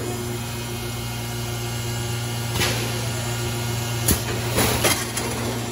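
Roll-fed plastic thermoformer running with a steady machine hum, with several sharp clicks and crackles from the plastic sheet and mechanism about halfway through and again near the end.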